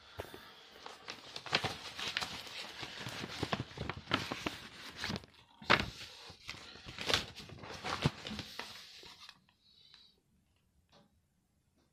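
Paper packaging rustling and crinkling while plastic DVD cases are handled, with many sharp clicks and knocks; it dies away about nine seconds in.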